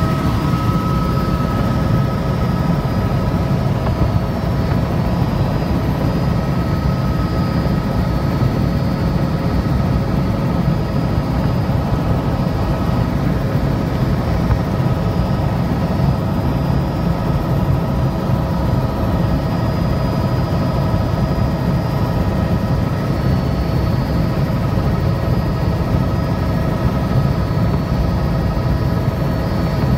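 Helicopter in flight heard from inside the cabin: a steady, unbroken drone of rotor and turbine engine with a faint constant whine above it.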